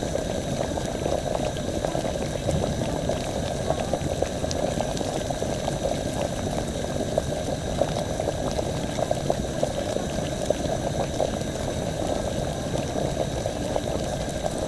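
Liquid bubbling at a steady boil, a dense, even patter of small pops.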